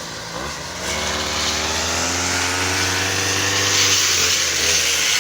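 Brush cutter engine running at a steady high speed, its pitch dipping near the start and then rising a little about a second in, with a high hiss that grows louder after about three seconds.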